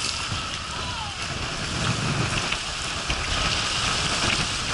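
Steady rushing and spattering of water running down a water slide.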